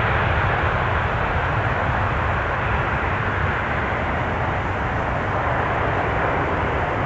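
Airbus A320's jet engines during the landing rollout just after touchdown: a steady rush of engine noise that slowly fades as the airliner rolls away down the runway.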